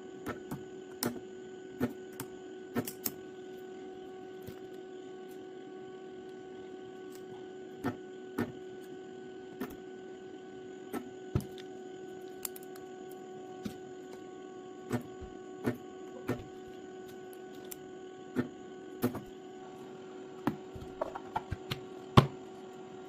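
A steady electrical hum with scattered sharp clicks and taps at irregular intervals.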